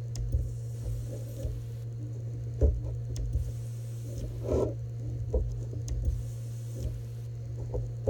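Hand-held ultrasonic welder gun spot-welding a perforated poly egg belt: a faint high hiss comes in spells of a second or two as each weld is held, over a steady low hum, with several light knocks as the tip is set down and moved along the belt.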